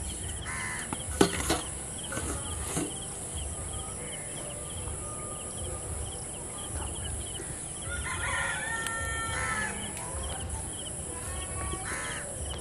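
A rooster crowing, one call of about two seconds starting about eight seconds in, with a shorter call near the end, over a steady high buzz of insects. A single sharp knock about a second in.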